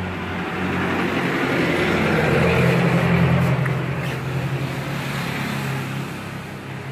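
A motor vehicle's engine passing on the road, growing louder to a peak about three seconds in and then fading away.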